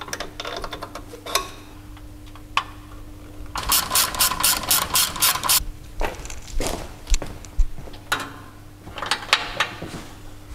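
Hand ratchet clicking as bolts are run in on a transfer case mount, with an even run of clicks, about four or five a second, for about two seconds midway. Scattered metallic clicks and knocks come before and after it.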